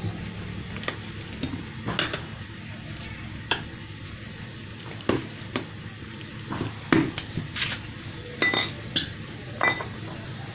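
Steel tire lever clinking and scraping against a spoked metal motorcycle rim while the tire bead is levered on over a new inner tube: irregular sharp metallic clinks, a few of them ringing briefly near the end.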